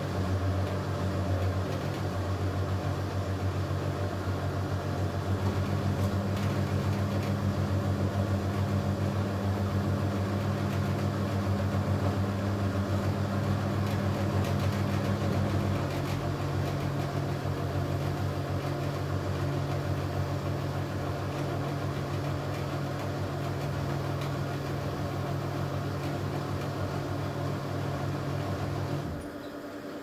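Candy Superautomatic 98 washing machine's motor humming steadily as it turns the drum of wet, sudsy towels in the wash. The hum shifts in pitch twice, about five and sixteen seconds in, and the motor stops shortly before the end.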